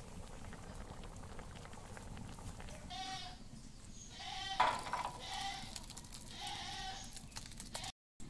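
Livestock bleating: four wavering calls of about half a second each, starting about three seconds in. A single sharp clink of the metal pan against the steel plate comes about halfway through and is the loudest sound.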